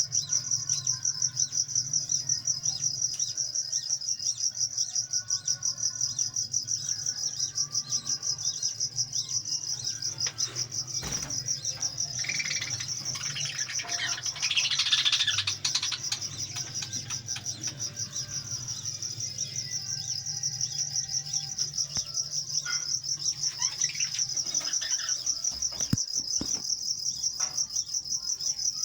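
Small parrots chirping and chattering, with a denser flurry of calls around the middle, over an insect trilling steadily in rapid, high-pitched pulses.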